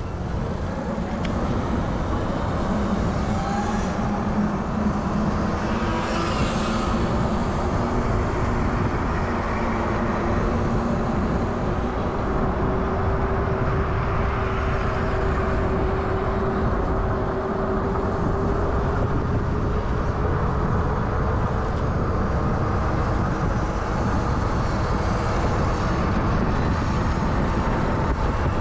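Riding along with a group of electric bikes: steady wind rumble on the camera's microphone and tyre hum, under the thin whine of electric motors that slowly rises and falls in pitch.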